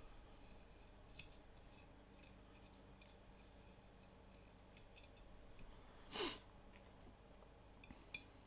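Near silence: quiet room tone with a few faint small clicks, and one short breath about six seconds in.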